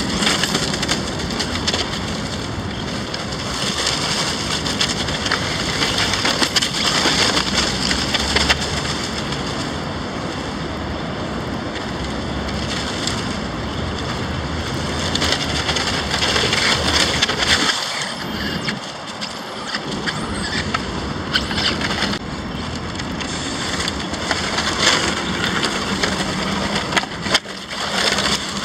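Radio-controlled car with a brushless electric motor driving and sliding over loose dirt, mixed with wind noise on the microphone.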